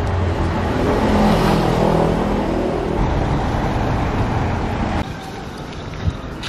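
City street traffic: a motor vehicle's engine running close by over a steady low traffic rumble. About five seconds in, it drops to quieter street noise.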